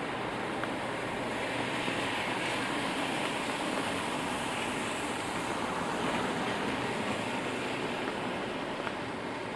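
Steady rain with traffic on wet city streets: tyres hissing on wet pavement swell up in the middle and ease off near the end.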